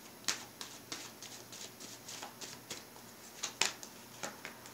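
Tarot cards being handled and drawn from the deck, a string of light clicks and flicks as the cards slide and one is laid down on the cloth, with louder snaps about a third of a second in and around three and a half seconds in.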